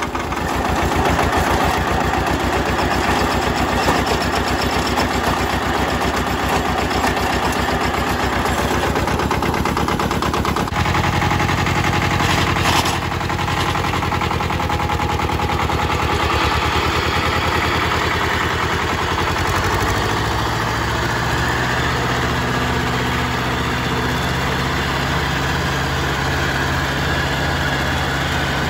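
The diesel engine of a Mitsubishi MT372 compact tractor, running steadily. Its sound changes abruptly about eleven seconds in and again about twenty seconds in, after which it settles into a steady low hum as the tractor mows tall grass with the deck engaged.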